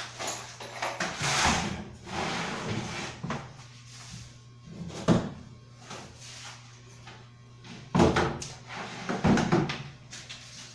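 Workshop handling sounds: wood and a clamp being set up on a workbench, with scraping and clattering and sharp knocks about five and eight seconds in.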